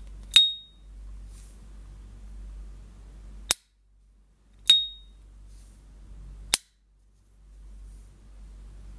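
S.T. Dupont lighter's hinged lid flicked open twice, each time with a sharp metallic ping that rings briefly, and snapped shut after each opening with a short click.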